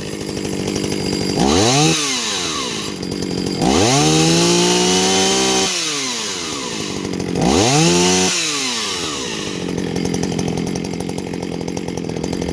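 Jonsereds 451EV two-stroke chainsaw idling and revved three times, dropping back to a steady idle between. There is a short rev about a second and a half in, a longer one held for about two seconds, and another short rev near eight seconds. It runs strongly with its carburettor freshly cleaned and adjusted.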